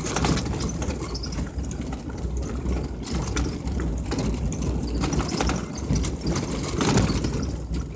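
Vehicle driving over a rough dirt road, heard from inside the cabin: a steady low rumble of engine and tyres with constant clicks and rattles from the bumpy track, louder about seven seconds in.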